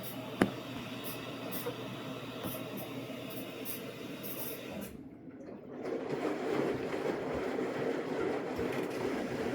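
Samsung AddWash front-loading washing machine running mid-cycle, with a sharp click about half a second in. After a brief lull around five seconds, a louder steady rush of water starts: the recirculation system spraying water back into the drum.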